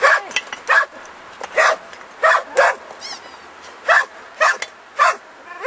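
Belgian Malinois search-and-rescue dog giving a barking alert at a hidden victim's spot in rubble: about nine short, loud barks, some coming in quick pairs.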